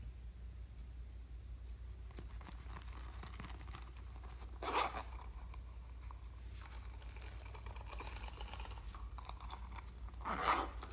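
Slime being stretched and squeezed by hand, making soft crackling and tearing noises, with two louder squishes about halfway through and near the end.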